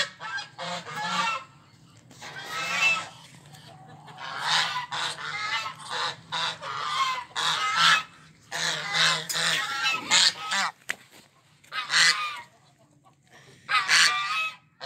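Domestic goose honking again and again, harsh calls coming in runs with short pauses between them.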